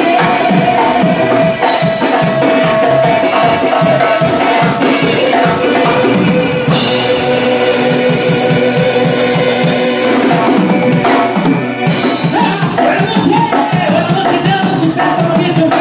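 Live band music led by a drum kit played in a steady, driving beat of kick, snare and cymbals, with held instrument notes sounding over it.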